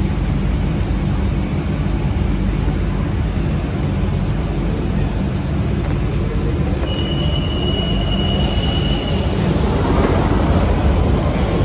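London Underground Central line 1992 stock train at the platform, with a steady rumble. About seven seconds in a steady high tone sounds for about two seconds, then a hiss; a rising whine and growing rumble follow near the end as the train gets under way.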